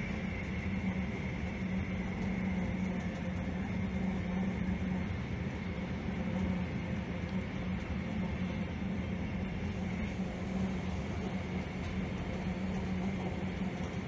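SJ passenger train running: a steady rumble with a constant low hum and a fainter, high steady tone.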